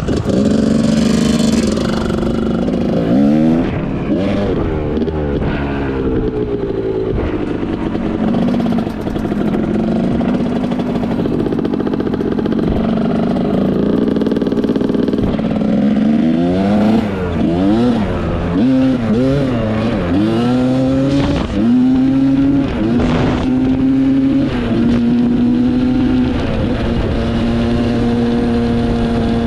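Dirt bike engine running hard on a trail ride, its pitch rising and falling repeatedly as the throttle opens and closes and it shifts. There are quick runs of rev-ups and drops in the middle, then a steadier pull near the end.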